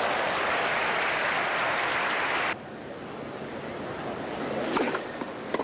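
Stadium crowd cheering and applauding after a point, loud, cutting off suddenly about two and a half seconds in. A quieter crowd hum follows, with a couple of sharp knocks near the end.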